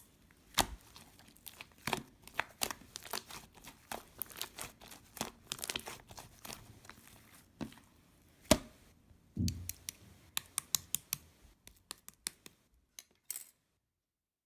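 Irregular crinkling, crackling and tapping of things being handled close to the microphone, with one sharper louder knock a little past halfway. It stops shortly before the end.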